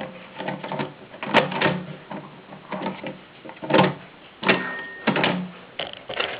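AEG Mignon Model 4 index typewriter being operated: the selector key pressed and the type cylinder striking the ribbon and paper. Four loud clacks with lighter mechanical clicks between.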